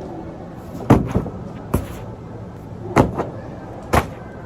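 A series of about six sharp knocks and clacks, loosely spaced, over a steady low background hum.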